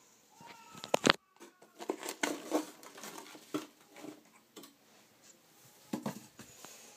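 Irregular close knocks, taps and scratchy rustling, with a sharp double knock about a second in and another cluster near the end.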